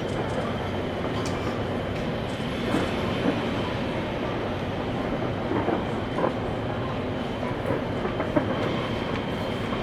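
Fireworks barrage heard from a distance: a continuous dense rumble of overlapping bursts, with a few sharper pops standing out.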